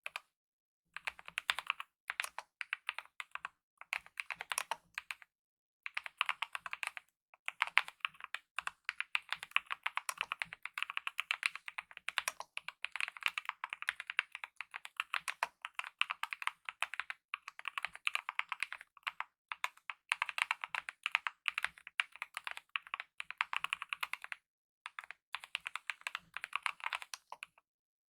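Fast, continuous typing on a Kemove 64 mechanical keyboard with lubed optical red linear switches and DSA-profile keycaps: dense runs of light key clacks, broken by a few short pauses.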